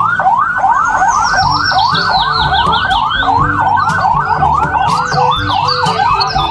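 Police siren in a fast yelp, its pitch sweeping up and down over and over, about two to three sweeps a second.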